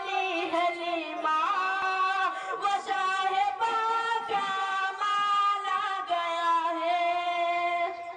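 A boy singing a naat, an Urdu devotional poem, unaccompanied into a microphone, in long held notes with ornamented turns. The voice stops near the end.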